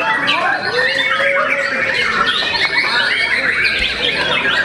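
Caged white-rumped shamas (murai batu) singing at once, a dense tangle of overlapping whistled phrases and fast chattering notes that does not let up.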